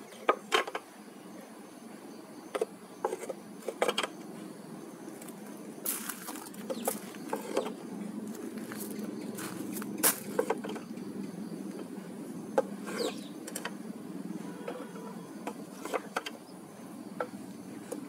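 Light wooden clicks and knocks, irregularly spaced, as teak hive frames are set one by one into a wooden eight-frame beehive box. A steady low background hum runs underneath.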